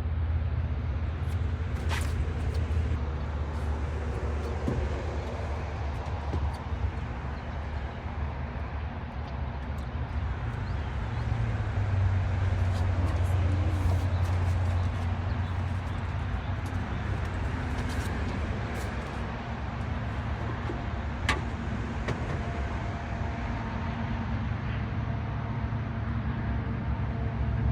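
Boat motor running steadily with a low, even hum, under a noisy haze, with a couple of sharp ticks.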